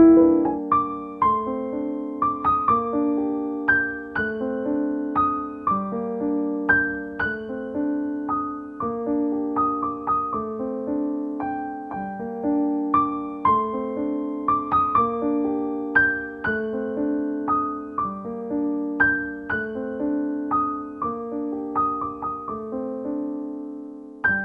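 Solo piano music: a gentle, repeating figure of single struck notes over low chords.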